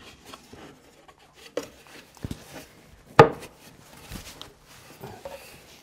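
A wooden panel being pushed and worked down into the slots of wooden feet: wood knocking and rubbing on wood, with a few light knocks and one sharp, loud knock about three seconds in as it seats.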